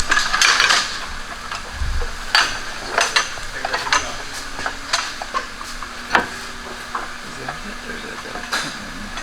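Workshop sounds of metal parts and tools being handled: scattered sharp clinks and knocks over a steady hiss.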